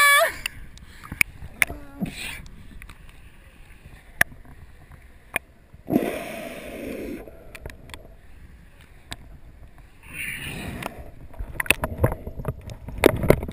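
Water sloshing and gurgling against a GoPro's waterproof housing held at the water's surface, with scattered ticks of droplets. There is a brief rush as the camera dips about six seconds in, and more churning from about ten seconds on as it goes under.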